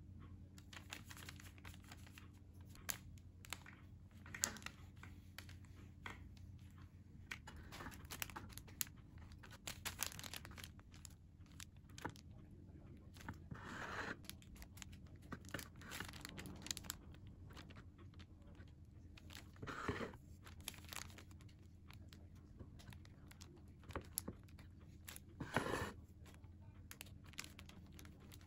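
Chef's knife sawing horizontally through an angel food cake, with a sheet of parchment paper crinkling under the hand that holds the cake down. Faint rustles and scrapes, with a few louder crackles.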